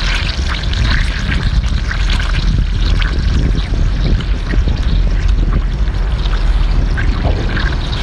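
Eating a cooked lobster tail, with irregular short clicks of chewing and cracking shell, over a steady rumble of sea wind on the microphone.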